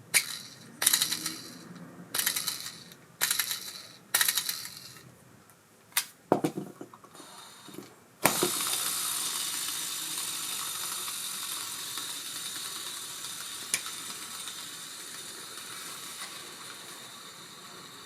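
Abu Garcia Ambassadeur 5500C baitcasting reel: several short hand-turned spins of the bearing cog wheel and level-wind gearing, about a second apart, then a few clicks. About eight seconds in the spool is set into a long free spin that slowly runs down, with a knocking noise in the rotation that the tuner traces to a faulty bearing cog wheel.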